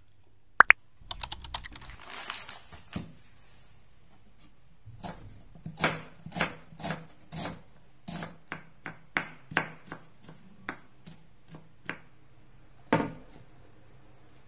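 Kitchen knife slicing an onion on a wooden cutting board, a run of crisp strokes at about two to three a second, then one louder knock on the board near the end. A couple of sharp clicks and a brief clatter come first.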